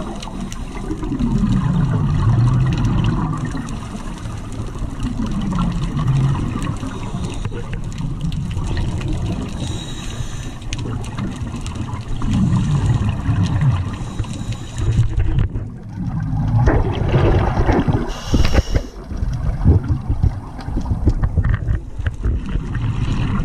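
Underwater gurgling of a scuba diver's exhaled bubbles rushing past the camera, with louder, rapid bursts of bubbles in the second half.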